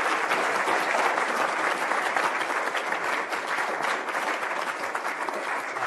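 Lecture-hall audience applauding steadily at the end of a talk, the clapping easing off a little towards the end.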